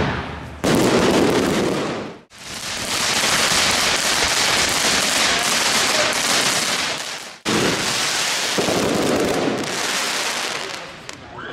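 Consumer fireworks crackling and hissing densely as fountains and batteries burn, broken off abruptly by cuts several times.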